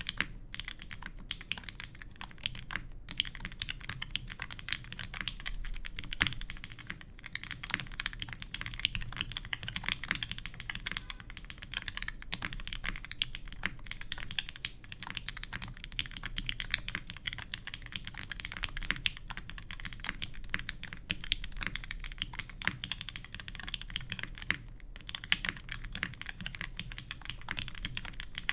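Continuous typing on an ORI CLS3//88 mechanical keyboard with an aluminium plate, lubed vintage Cherry MX Black linear switches on 63g springs, and GMK keycaps: a dense run of keystroke clacks with brief pauses a few seconds in and again near the end.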